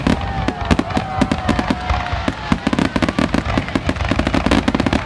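Aerial fireworks going off in quick succession: a dense run of sharp bangs and crackling, with a long, slightly falling whistle over the first two seconds or so.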